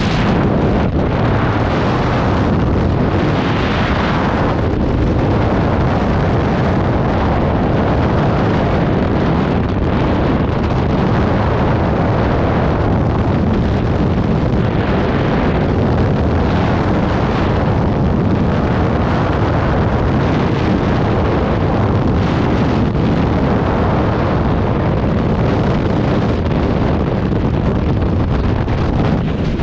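Freefall wind rushing over the camera's microphone: a loud, steady rush of air with a few brief swells.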